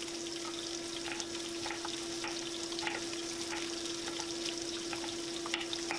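Diced red bell peppers sizzling in hot oil in a frying pan, a steady hiss, with a kitchen knife clicking on a wooden cutting board every so often as a zucchini is diced. A steady low hum runs underneath.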